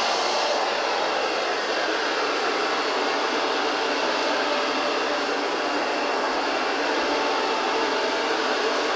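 GRUNDIG VCR 2330 robot vacuum cleaner running, a steady, even rush of noise from its suction motor.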